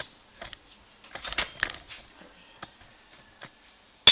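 Metal spoon clinking lightly, with a short ringing cluster about a second in, then set down with a sharp clack on a ceramic dinner plate at the end.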